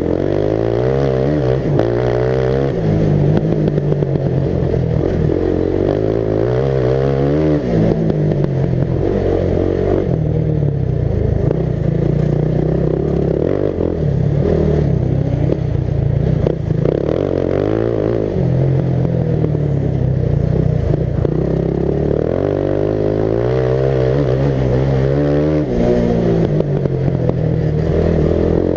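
Racing ride-on lawn mower engine, heard close up from the driver's helmet, revving up and dropping back again and again as it accelerates and lifts off around the track.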